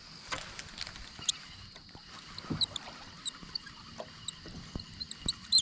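Quiet water sounds around a small boat, with scattered small clicks and knocks while a lure is retrieved on a spinning rod. Short high chirps repeat through the second half.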